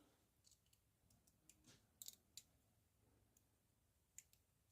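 Faint, scattered metallic clicks of a safety pin being worked inside the lock of a pair of rigid handcuffs, as the lock is picked.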